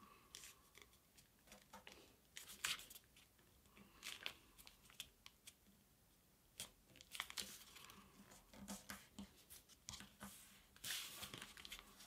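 Faint rustling and crinkling of a sheet of printer paper being folded by hand, its thick layered creases pressed flat, as a string of short, scattered scratches.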